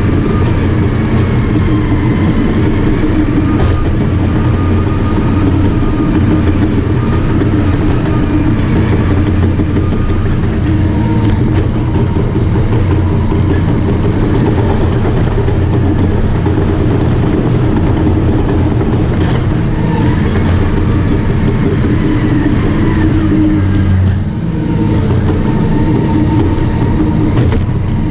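Caterpillar D5 bulldozer's diesel engine working steadily, with a high wavering squeal over it; the engine note dips briefly near the end.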